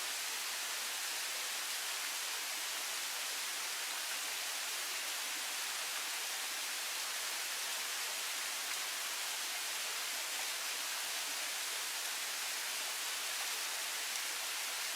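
Waterfall rushing: a steady, hissy roar of falling water with little bass, unchanging throughout.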